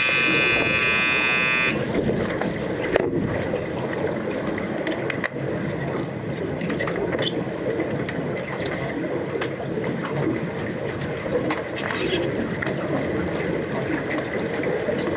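Underwater buzzer sounding a steady, many-toned drone that cuts off sharply about two seconds in. Then the muffled underwater churn of swimmers, fins and bubbles follows, with scattered sharp clicks.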